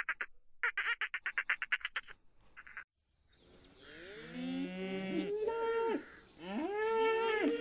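Several short bursts of rapid, buzzing click trains from a dolphin, then a brief silence. After that, cattle mooing: several long, overlapping calls that rise and then hold, the loudest two about halfway through and near the end.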